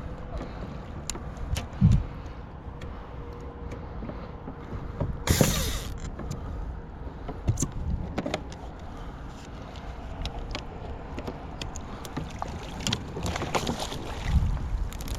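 Knocks, clicks and bumps on a fishing kayak with water sounds, a low thump about two seconds in and a short splash-like burst about five seconds in.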